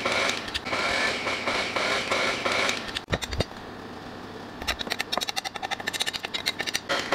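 KitchenAid tilt-head stand mixer running, its flat beater working thick cake batter in a steel bowl, then stopping about three seconds in. Later comes a quick run of clinks and scrapes from a metal spoon against the steel bowl.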